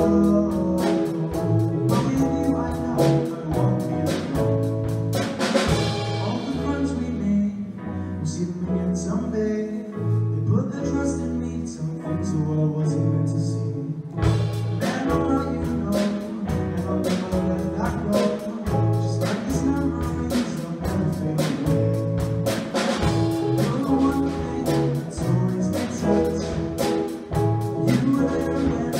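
Live band with drum kit, bass guitar, electric guitar and keyboard playing a song. About six seconds in the drums and cymbals drop out, leaving the held notes, and they come back in about eight seconds later with a steady beat.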